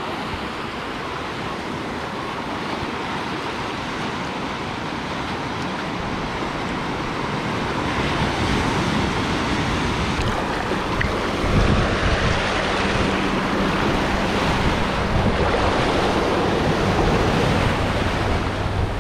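Surf: small waves breaking and washing up onto a sandy beach, with wind rumbling on the microphone. The wash grows louder over the second half.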